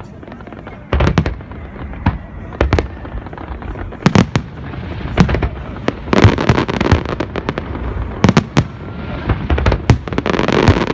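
Fireworks display: a fast, irregular series of sharp bangs from bursting aerial shells, with denser runs of rapid pops about six seconds in and again near the end.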